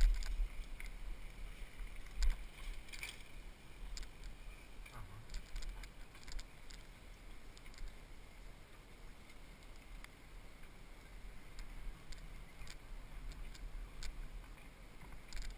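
Steady low rumble of wind and tyres rolling on pavement, picked up by a helmet-mounted camera on a mountain bike ride. Scattered light clicks and rattles from the bike run through it.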